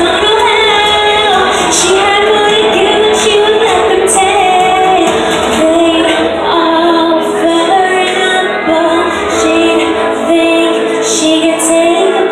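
Woman singing a song live into a microphone over instrumental accompaniment, her sustained and gliding notes carrying the melody.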